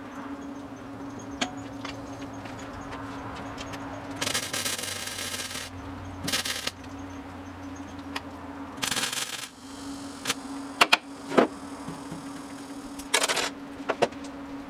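MIG welder laying short welds on sheet-metal patches: four bursts of arc crackle, the longest about a second and a half, over a steady hum. A few sharp clicks fall between the later bursts.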